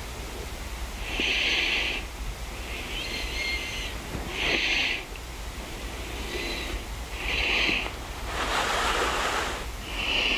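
Breathy hissing close to the microphone: short bursts every second or two, with one longer, fuller exhale about three quarters of the way through, over a low steady hum.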